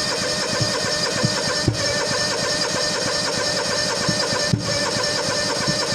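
Gasoline engine of an old skid steer running unevenly on a cold morning, with scattered pops through its steady running. The owner finds the fuel-injected engine reluctant in the cold and does not know why.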